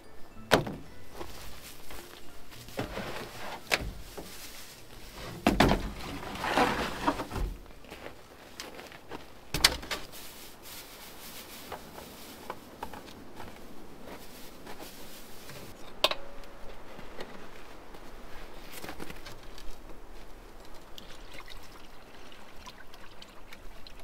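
Scattered knocks and thuds of gear being handled at a caravan's kitchen compartment, with a sharp knock about two-thirds of the way in, then liquid pouring from a plastic jerrycan near the end.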